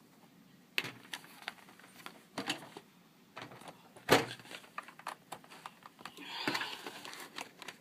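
Scattered clicks and plastic knocks of hands working inside a laptop as a RAM stick is reseated, with the loudest knock about four seconds in and a stretch of rubbing or scraping around six to seven seconds in.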